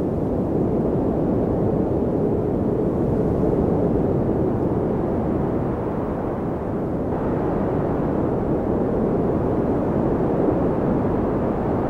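Steady low rumbling wind noise of a snowstorm ambience, an even roar with no separate events.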